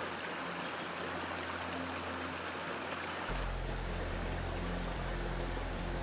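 Water pouring over a small weir into a stream, a steady rush, under background music whose bass line comes in strongly about three seconds in.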